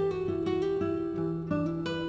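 Background music: a plucked acoustic guitar melody, a new note every few tenths of a second over a held low note.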